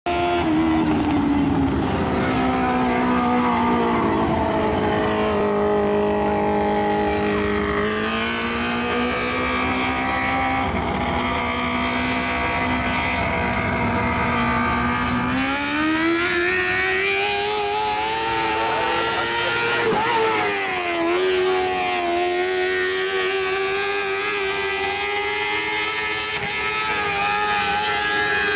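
Winged dirt-track sprint car engine running at a steady pace on the oval, its pitch easing slightly at first, then climbing about halfway through and holding higher, with a brief dip shortly after.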